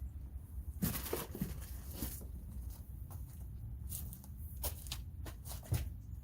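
Packaging rustling and crinkling as it is handled and pulled apart, in irregular short crackles, with a low steady rumble underneath.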